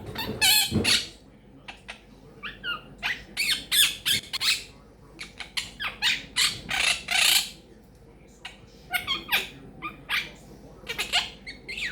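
Quaker parrot (monk parakeet) chattering: a string of short squawks and chirps, some bending up or down in pitch, coming in quick clusters with brief pauses between them.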